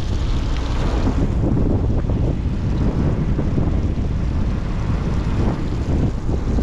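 Wind buffeting the microphone aboard a sportfishing boat under way, over the boat's low steady rumble and rushing water.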